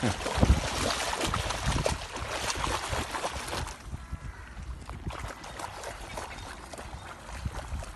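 Wind rumbling on the microphone over rippling lake water, louder for the first few seconds and easing off about halfway through.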